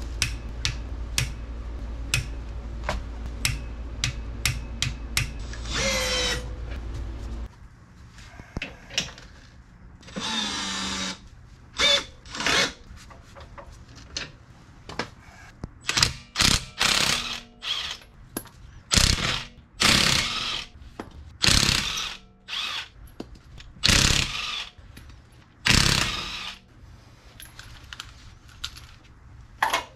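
A socket ratchet clicking in an even rhythm while lug nuts are worked, then a cordless impact wrench running in a series of short, loud bursts on the wheel's lug nuts.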